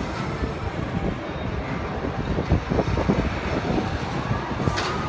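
Steady low rumbling noise with irregular gusty buffeting, heard from inside a moving swinging Ferris wheel gondola high above the park: wind on the microphone mixed with the ride's running noise.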